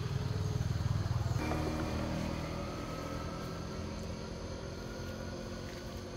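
A motor vehicle's engine running close by. About a second and a half in, its low, pulsing sound gives way to a steadier hum.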